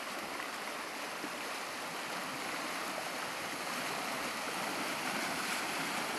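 Fast, muddy river rushing and churning over a stony bed close by, a steady, loud noise of running water around the legs of a person wading across in waders.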